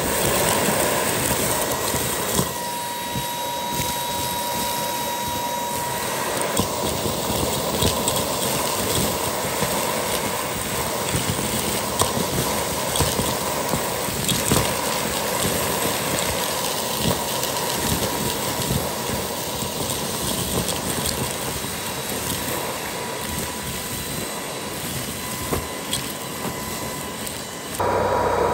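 Lu Blue Lu cordless stick vacuum running with its crevice tool in a pile of fluff, grass and wood debris: a steady rush of suction broken by frequent small ticks and clicks of debris being drawn in. Near the end the sound turns louder and deeper.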